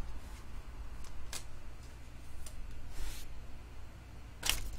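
Handling noise from a trading card in a clear plastic sleeve: a few soft plastic rustles and clicks as the card is turned over, with a louder rustle near the end, over a faint steady low hum.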